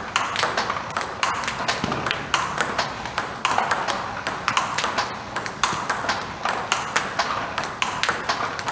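Table tennis rally: a plastic ball repeatedly struck by a bat faced with Kokutaku 868 Spin Power "Sound" rubber and bouncing on the table, in quick sharp clicks several times a second.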